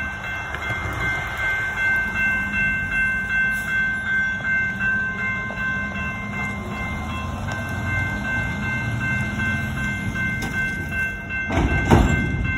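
Railroad grade-crossing bell ringing in quick, regular strokes as the crossing signals activate for an approaching train, over a low rumble. A brief loud burst of noise comes near the end.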